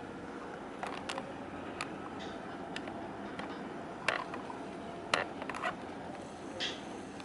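Steady background hiss with scattered sharp clicks and knocks, the loudest about four and five seconds in, and a short scrape near the end.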